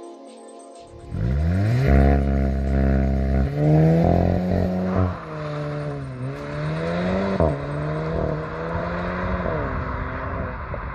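Car engine revving hard, echoing in an underground parking garage: the revs climb sharply about a second in, hold high, then fall and rise again several times.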